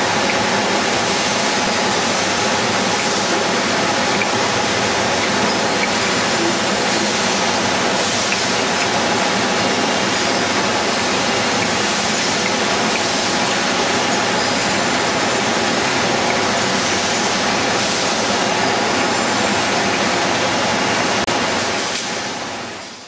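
Glass-bottle bottling line running: a steady, dense din of glass bottles rattling and clinking along the conveyors and filling machinery. It fades out near the end.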